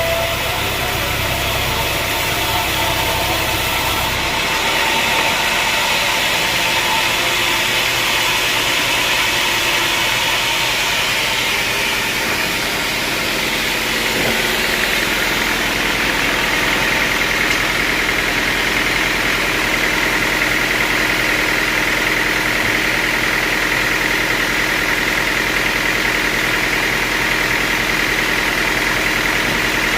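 Sawmill machinery running steadily, with a continuous mechanical drone; a low rumble drops away about four seconds in, and a higher steady whine grows stronger in the second half.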